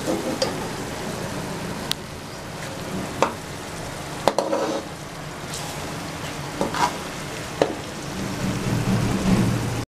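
Spiced onion-tomato masala and oil sizzling steadily in a metal pot, while a steel spoon scrapes and clinks against the pot several times as the masala is scooped out onto a plate.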